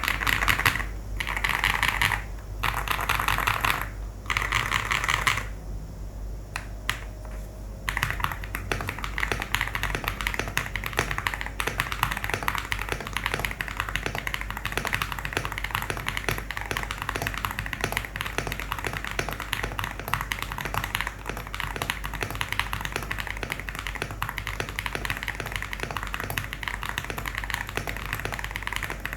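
Typing on a custom 65% mechanical keyboard with a creamy sound: a few short bursts of rapid keystrokes in the first five seconds, then steady fast typing from about eight seconds in.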